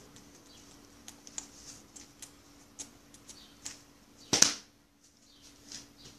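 Handling noise on a handheld phone's microphone: scattered taps, rubs and rustles as the phone is moved, with one louder knock about four and a half seconds in, over a faint steady hum.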